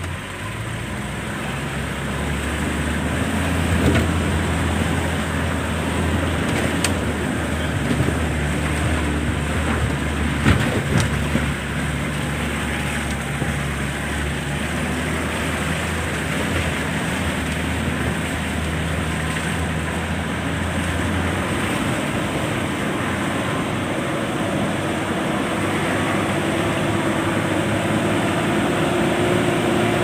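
A vehicle engine running as it drives along a rough dirt road, its low hum stepping up and down in pitch a few times, over steady road noise, with a few knocks about ten seconds in.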